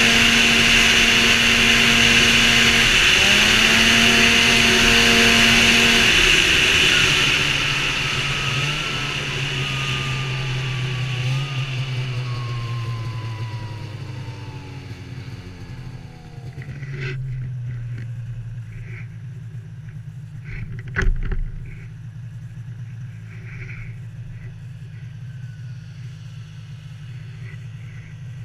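Snowmobile engine running hard at speed with a loud rush of wind and track noise. About seven seconds in the throttle comes off: the engine pitch falls steadily as the sled slows, settling into a quieter, steady low drone. A single sharp thump sounds about twenty-one seconds in.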